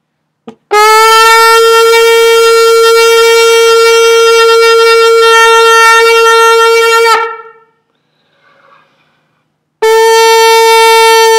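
Shofar blown in two long, steady blasts on the same note. After a short puff, the first blast begins about a second in, lasts about six seconds and ends with a brief upward crack; the second starts near the end.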